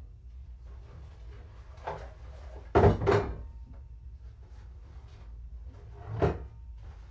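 Several knocks or thumps: a soft one about two seconds in, a loud double knock near three seconds, and another loud knock about six seconds in.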